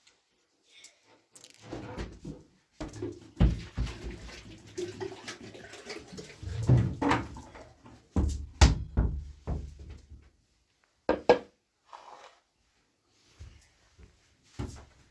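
Irregular knocks, clatter and scraping of household objects being handled, with some water sounds, the sharpest knocks a few times through the middle.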